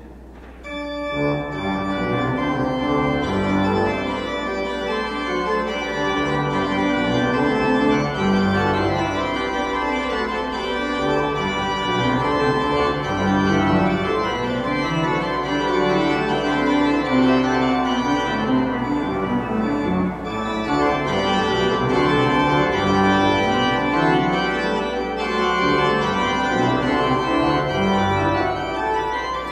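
Church organ playing sustained chords, starting about half a second in, as the recessional music at the end of Mass.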